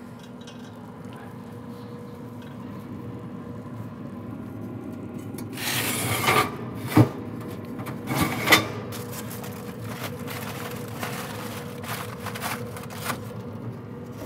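Metal grill grates and the heat diffuser plate being pulled out of a Yoder YS640s pellet grill, metal scraping on metal. There is a sharp clank about seven seconds in, another scrape a second later, and then a run of lighter scrapes and clinks, over a steady hum.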